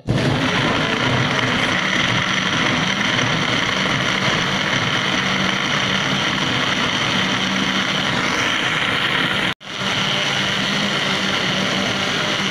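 Mix Blend personal blender motor running at full speed, pureeing coconut flesh and water into coconut milk: a loud, steady whir. It cuts out for an instant about nine and a half seconds in, then runs on.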